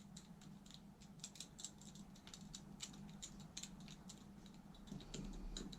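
Faint, irregular small clicks and taps as the plastic cap is fitted and fastened onto a motorcycle front brake master cylinder reservoir, over a steady low hum.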